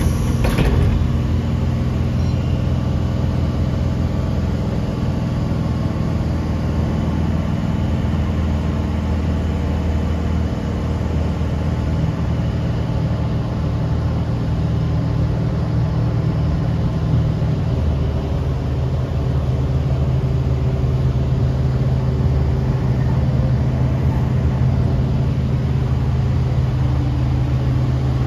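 Steady hum and rumble of a Sydney Trains K set electric train heard from on board, with a brief rattle at the very start.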